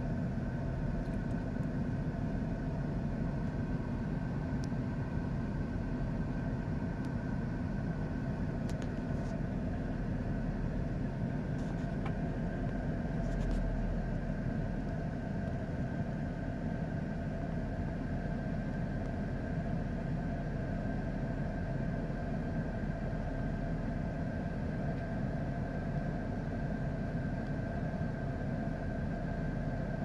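A car engine idling steadily, heard from inside the car: a constant low hum with a faint steady whine above it.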